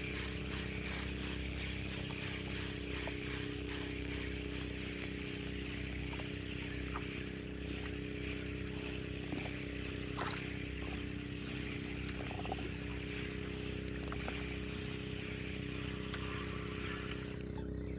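Boat engine running steadily at an even pitch, a constant drone, with a few faint clicks over it.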